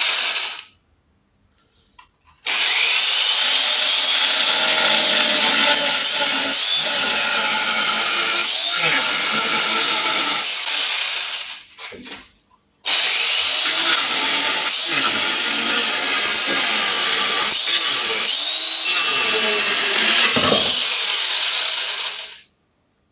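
Angle grinder fitted with a chainsaw bar-and-chain attachment cutting through a chipboard panel. The motor runs at full speed in three spells with short pauses between them, its pitch sagging now and then as the chain bites into the board, and stops near the end.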